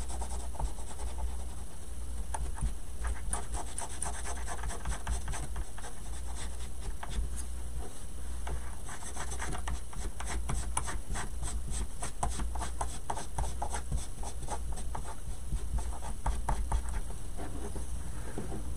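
Posca paint marker scratching over a small cutout piece in quick back-and-forth strokes as it colours it in.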